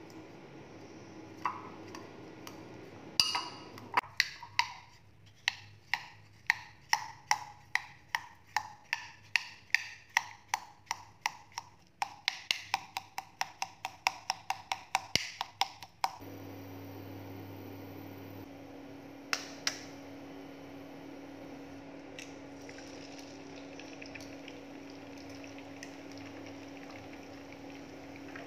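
Metal spoon mashing boiled potatoes in a glass bowl, striking the glass in a long run of sharp clinks, about two to three a second. About sixteen seconds in, the clinks stop and a steady low hum remains.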